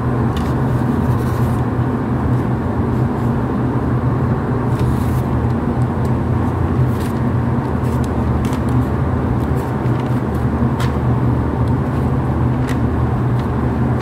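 Steady low drone of running machinery, with a few faint clicks.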